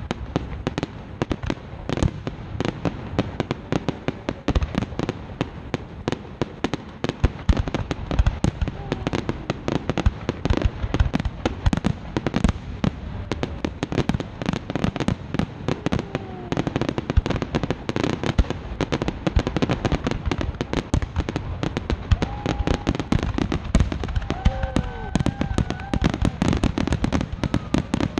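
Aerial fireworks shells bursting in a dense, continuous barrage, many bangs a second.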